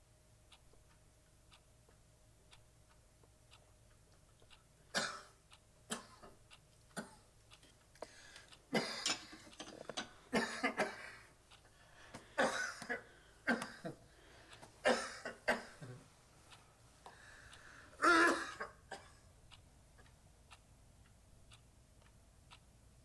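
An elderly man coughing and clearing his throat in a run of irregular fits lasting about fourteen seconds, the loudest near the end, over the faint, steady ticking of a clock.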